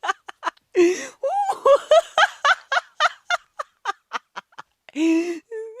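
A woman laughing hard in a quick run of short, cackling bursts, then a longer, louder laugh about five seconds in.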